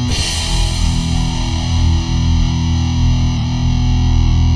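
Background rock music: a distorted electric guitar chord held and ringing out, with no drum hits.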